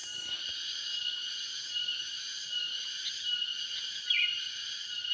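Steady, high-pitched chorus of insects in several layered tones, with a short chirp from another creature about four seconds in.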